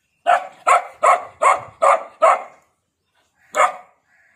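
Red Gultair dog barking: six barks in quick succession, then a pause and one more bark near the end.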